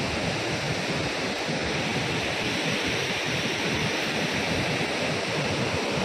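A waterfall and the river below it in monsoon flood, rushing: a steady, dense wash of falling and churning water that does not let up.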